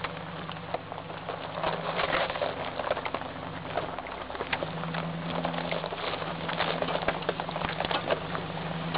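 Four-wheel drive's engine running at low revs while it drives slowly down a rocky track, with many sharp clicks and crackles of stones and gravel under the tyres and rattles from the vehicle. The engine note changes about four and a half seconds in.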